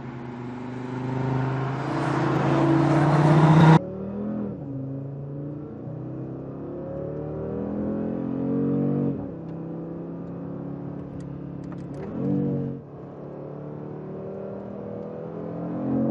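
Audi RS3's turbocharged 2.5-litre five-cylinder engine accelerating hard, its note rising and getting louder before cutting off abruptly a few seconds in. It then pulls up in pitch again several times: through the middle, briefly near the twelve-second mark, and again near the end.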